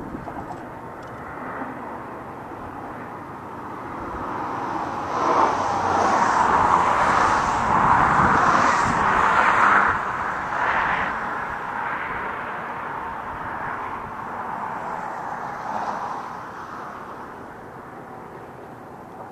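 Traffic noise from a passing vehicle on the highway bridge, swelling over a few seconds to its loudest near the middle, then slowly fading away.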